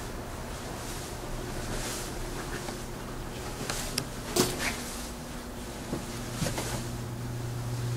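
A steady low hum with scattered soft knocks and clicks, the sharpest a little past halfway through.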